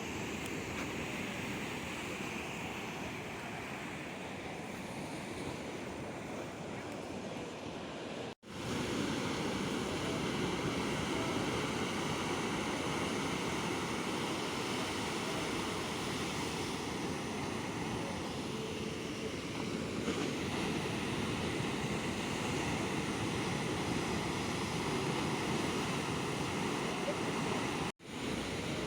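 Sea waves breaking and washing on the shore: a steady rush of surf. The sound drops out for an instant twice, about eight seconds in and near the end.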